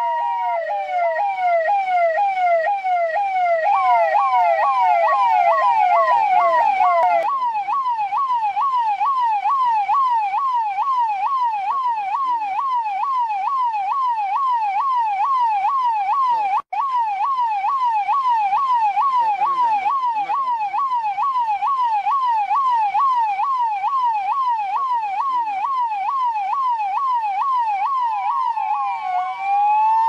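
Indian police electronic siren in a fast yelp, its pitch sweeping up and down about two to three times a second. It breaks off for an instant about halfway through and changes to a slower wail near the end.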